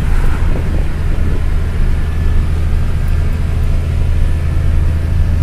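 Diesel engine of a heavy goods truck laden with about 30 tonnes, heard from inside the cab as a steady low drone while it pulls uphill under load.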